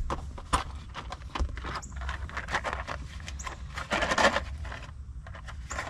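Hands working with wiring and small parts: scattered light clicks and scrapes, with a louder rustle about four seconds in, over a steady low hum.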